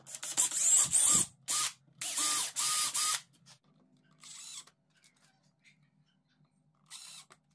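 Cordless drill running in several short bursts, its motor whining up to speed as it bores holes through an aluminium flat bar into plywood. About four seconds in, and again briefly near the end, a cordless driver whirs for a moment setting a screw.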